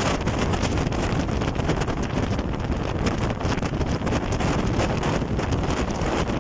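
Steady wind buffeting the microphone aboard a small boat under way, over a constant rush of boat and water noise.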